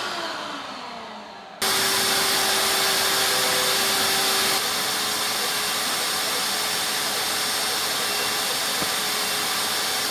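Vacuum table's suction motor winding down with falling pitch for about a second and a half, then starting abruptly at full speed and running steadily: a loud rushing hiss with a steady hum, while the CNC router plots with the pen.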